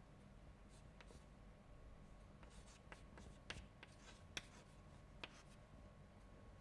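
Chalk writing on a chalkboard: faint scratches and sharp little taps as the chalk strikes and drags across the board, the clearest ones around the middle.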